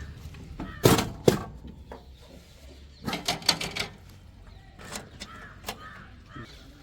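Clicks and knocks from plastic toy construction vehicles being handled: two sharp knocks about a second in, a quick rattling run of clicks around three to four seconds in, then two single clicks.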